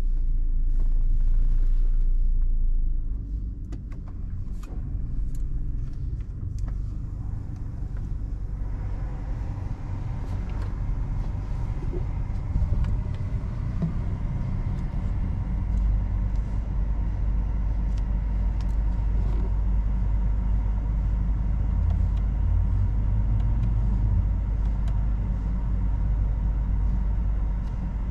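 Toyota Innova Venturer 2.0 on the move: a steady low rumble of engine and road noise, louder for the first few seconds and then settling lower.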